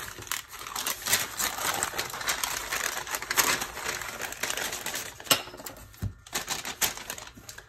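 Packaging and paper items being handled: crackly rustling and crinkling with many quick clicks and taps, one sharper click about five seconds in.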